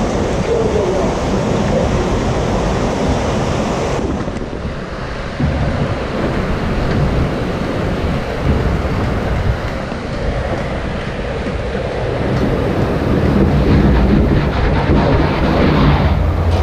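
Log flume boat drifting along the ride's water channel: water rushing and lapping around the boat, with wind buffeting the microphone. A low mechanical hum of the ride machinery builds in the last few seconds.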